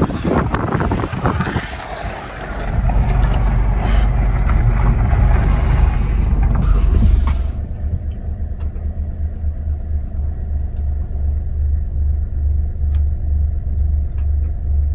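Car engine idling, heard with wind rumbling on the microphone through the open window; about seven seconds in the hiss cuts off abruptly, leaving a steady low engine hum with a slow, even pulse.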